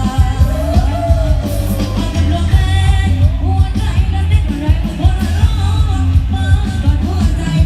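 Loud amplified music: a singer over a heavy, steady bass beat.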